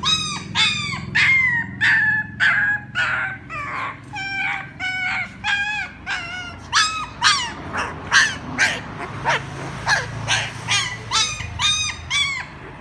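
Puppies crying for their mother: a steady run of short, high-pitched whimpering cries, about two a second, each arching or falling in pitch.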